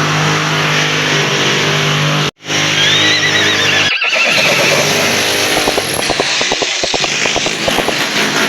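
Electric drill boring into a masonry wall: a steady motor whine, joined in the second half by rapid knocking as the bit bites into the wall. The sound breaks off twice, briefly.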